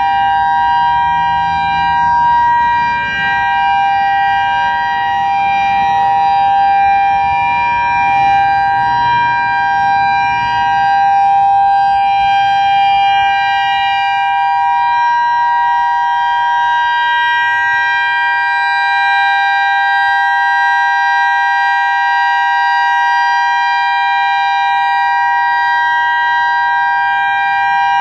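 Federal Signal EOWS 612 electronic outdoor warning siren sounding its steady Alert signal: two held tones close together in pitch, unchanging, from a rotating array of horn speakers.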